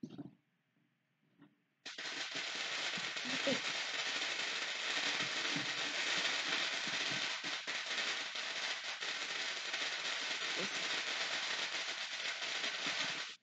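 Firecrackers going off in a rapid, continuous crackle, starting suddenly about two seconds in, lasting about eleven seconds and stopping abruptly.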